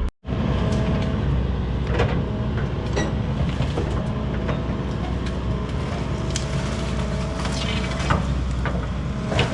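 Excavator engine running under load while pushing over a cedar tree, with repeated sharp cracks and snaps of breaking branches and wood throughout.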